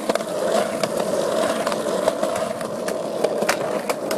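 Wheels rolling over rough pavement: a steady rolling noise with frequent small clicks and knocks.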